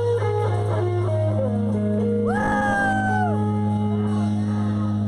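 Live band music: a guitar picks a melody over a low note held throughout, then about two seconds in a long held note comes in and falls away at its end.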